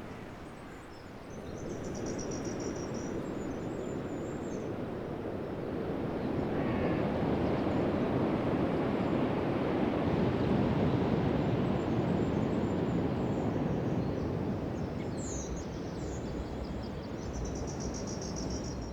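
Rushing water, a steady hiss that swells louder through the middle and eases off again, with a small bird's high trills briefly near the start and twice near the end.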